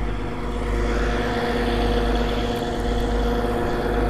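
The engine of a sand-dredging machine running steadily: a constant hum that holds one pitch throughout.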